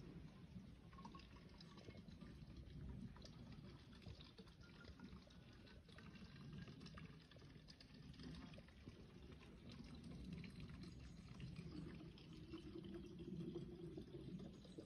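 Spring water running and pouring steadily, faint.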